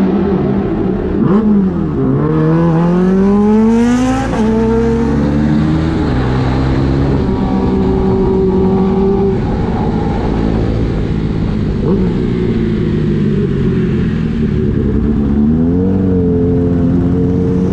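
Sport motorcycle engine pulling hard through a gear: the revs climb for about two seconds, drop at an upshift, then hold steady while cruising in traffic. There is a short rise in revs again near the end, with road and wind noise throughout.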